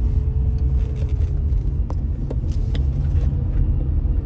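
Car driving along the road, heard from inside the cabin: a steady low rumble of engine and tyres, with a faint steady whine and a few light clicks a couple of seconds in.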